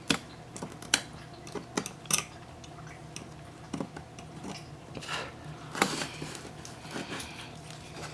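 A knife blade clicking and scraping against cracked camera cover glass in an iPhone's camera bezel, prying the broken glass out in irregular short strokes.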